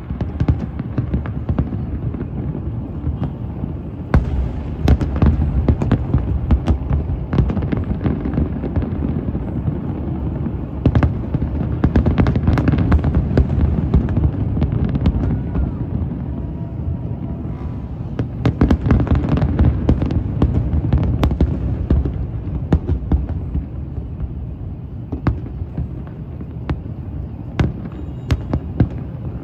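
Fireworks display: a dense, continuous barrage of booms and sharp crackling bangs over a steady rumble, heaviest in two stretches in the middle.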